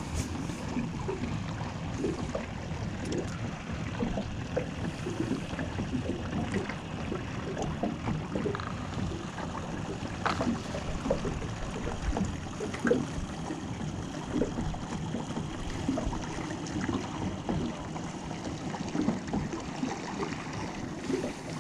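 River water lapping and slapping irregularly against the hull of a small fishing boat, with a low rumble of wind on the microphone.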